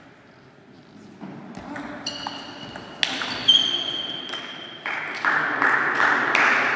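Table tennis ball clicking off bats and table in a short rally, with its bounces ringing in high pings. From about five seconds in, a louder dense patter of clapping takes over.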